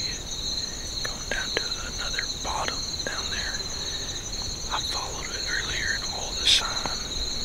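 Insect chorus: two steady high-pitched trills at different pitches that carry on without a break. Faint short chirps and small clicks sound underneath, and one sharp click comes about six and a half seconds in.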